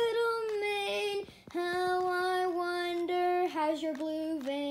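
A high voice singing a slow lullaby tune in long held notes, stepping down in pitch through the second half.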